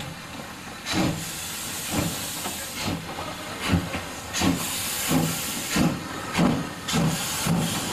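Steam locomotive pulling away slowly, its exhaust chuffs coming a little quicker as it moves off, over a steady hiss of steam from the cylinder drain cocks.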